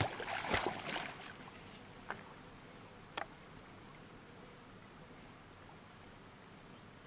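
A dog splashing as it swims out after a thrown ball, the splashing loudest in the first second and a half and then faint. A sharp click about three seconds in.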